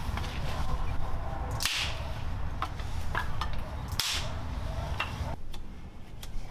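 Split firewood sticks knocking and clattering as they are handled and laid down, with two loud sharp cracks, one about one and a half seconds in and one about four seconds in, and several lighter clicks. A steady low rumble runs underneath and drops away near the end.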